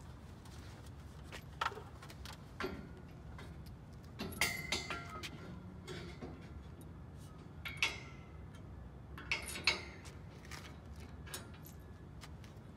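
Steel bar and steel rack brackets clinking and clanking as the bar is set into its brackets and bolted in: scattered sharp metallic knocks, some with a brief ringing, the loudest about four and a half, eight and nine and a half seconds in.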